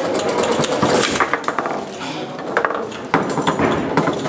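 Foosball play on a Tecball table: irregular hard plastic clacks and knocks of the ball, the men and the rods, with a loud sharp knock about three seconds in.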